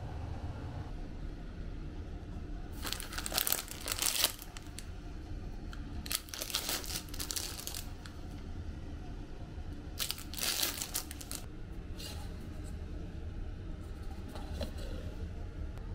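Plastic wrappers of disposable toothbrushes crinkling as a hand picks through a box of them, in three bursts of a second or two each, with a few lighter rustles after.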